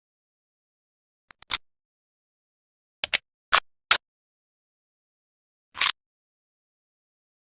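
About six short, sharp clicks and snaps of Colt M1911 pistol parts being taken apart, coming singly and in a quick pair, with dead silence between them.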